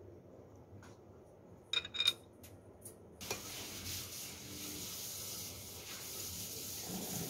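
A few light clinks of chopsticks and a ceramic spoon against a soup bowl, the loudest a quick double clink about two seconds in. About three seconds in, a steady hiss starts suddenly and keeps on.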